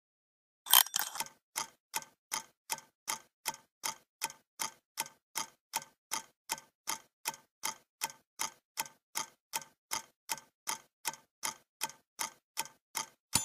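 Steady clock-like ticking, nearly three ticks a second, starting with a louder first tick about a second in.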